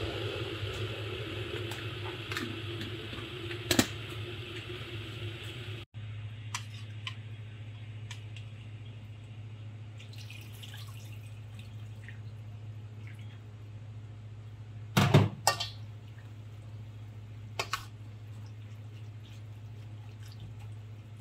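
Kitchen food-prep sounds: utensils clicking and knocking against bowls as sauce is mixed and stirred into sliced beef, over a steady low hum. The loudest knocks come about four seconds in and again around fifteen seconds in.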